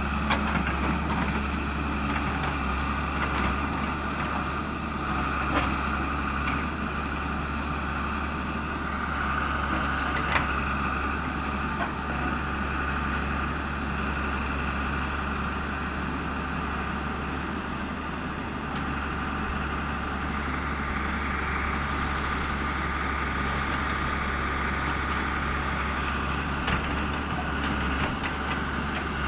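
Hyundai 140W-7A wheeled excavator's diesel engine running steadily under a digging load, with a steady higher tone over it. A few short sharp knocks are scattered through.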